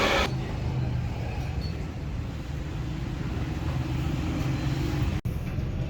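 A loud hissing noise cuts off just after the start, leaving a steady low mechanical hum from a running motor. The hum drops out for an instant near the end.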